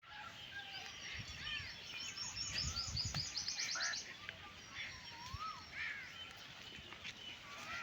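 Birds calling outdoors: repeated short chirps and arched calls, with a fast, high trill of notes from about two to four seconds in.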